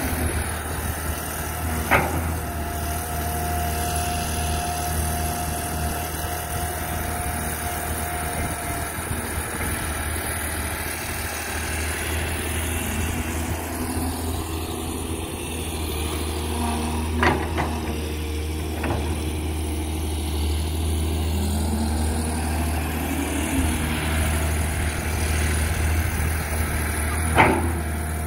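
Caterpillar 320D hydraulic excavator's diesel engine running steadily while it digs, with a few sharp knocks from the working machine, the loudest near the end.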